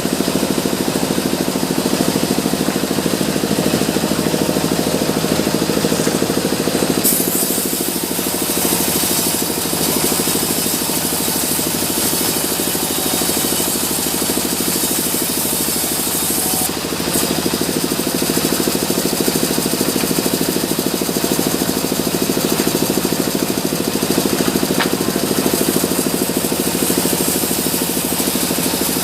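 Sawmill saw machinery running with a steady engine-like hum. During two stretches, from about a quarter of the way in to past halfway and again near the end, a loud high hiss joins it as the blade cuts through mahogany.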